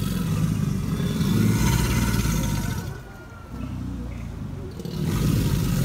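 American alligators bellowing: deep, rumbling calls that drop off about three seconds in, return more quietly, and swell loud again near the end. Bellowing is the alligator's territorial and courtship call.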